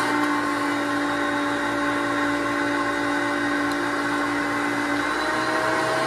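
1990 Hoover Concept One upright vacuum cleaner running on carpet: a steady motor whine that steps slightly higher in pitch about five seconds in.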